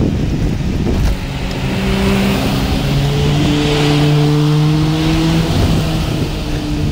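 Car engines passing close by: a steady hum that rises slowly in pitch, as a car accelerating. Wind rumbles on the microphone of a camera on a moving bicycle, strongest in the first second.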